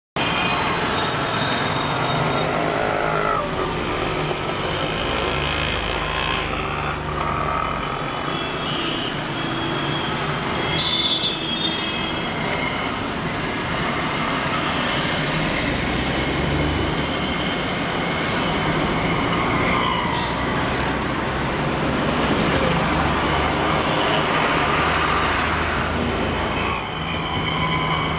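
Road traffic heard from inside a moving car: a steady hum of engine and road noise, with other vehicles close around.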